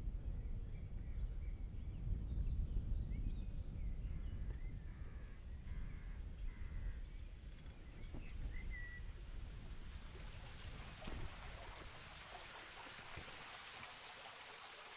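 Outdoor ambience on a bicycle ride: a low rumble of wind and road noise that fades away as the bike slows, with a few birds chirping and whistling. Toward the end a steady hiss takes over.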